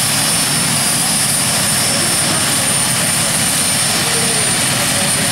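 Engines of a free-class pulling tractor running loudly and steadily.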